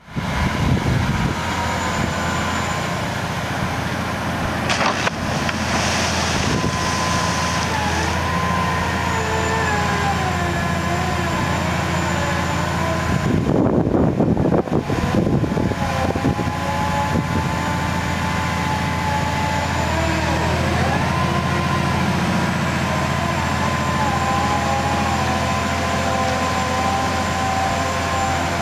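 Cat C27 V12 diesel engine of a Sennebogen 6140E HD dragline crane running steadily under load, with a wavering whine over the engine drone. About halfway through, a louder rushing noise lasts two to three seconds.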